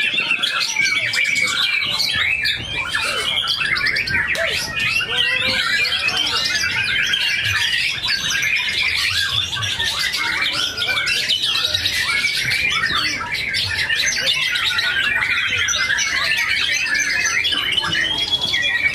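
White-rumped shamas singing together, a dense, unbroken tangle of rapid whistles, trills and harsh notes.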